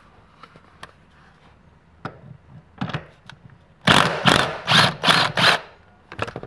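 Impact gun with a 16 mm socket hammering at a car seat-rail bolt in five short, loud bursts over under two seconds, loosening the bolt. A few light clicks and knocks come before and after.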